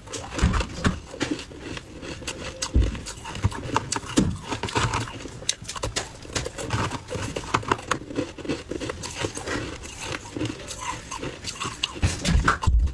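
Frozen ice balls dusted with matcha powder being bitten and chewed: many sharp, irregular crunches in quick succession.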